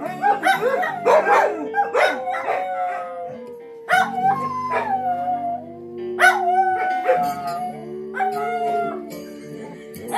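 Kuvasz dogs howling along to a slow blues song playing from a laptop: several long, wavering howls overlap in the first few seconds, then single long howls start about 4, 6 and 8 seconds in.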